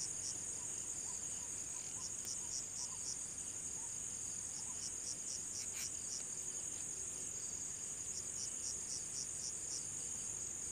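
Steady high-pitched trill of crickets, with a second insect chirping in short runs of quick pulses.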